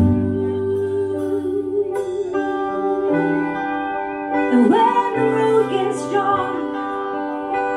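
Live band music: a woman sings over held keyboard chords and electric guitar, her voice sliding and wavering from about halfway through.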